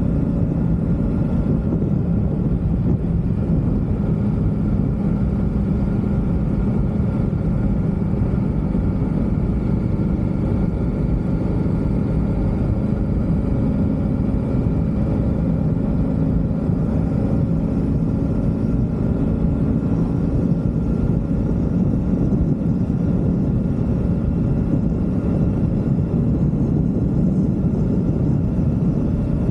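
Triumph Tiger motorcycle's three-cylinder engine running steadily while riding, under a dense low rumble of wind and road noise on the onboard microphone, the engine note drifting only slightly in pitch.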